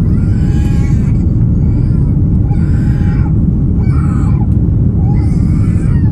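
Cabin noise of an Airbus A330-900neo climbing out: a loud, steady rumble of its Rolls-Royce Trent 7000 engines and airflow, heard from a window seat over the wing. Faint, muffled voices come and go over it four times.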